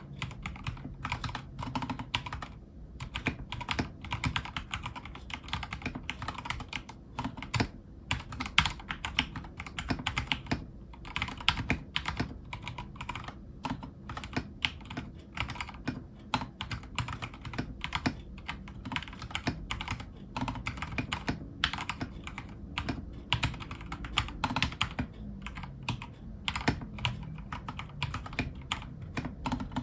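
Fast, continuous typing on a Vortexgear Cypher 65 mechanical keyboard with stock Cherry MX Silver linear switches and PBT OEM-profile keycaps: a dense run of keystroke clacks with a few short pauses.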